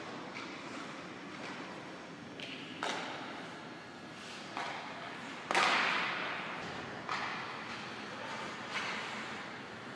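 Hockey pucks and sticks cracking against each other and the boards, five sharp hits echoing around the ice rink, the loudest about halfway through, over the rink's steady background hiss.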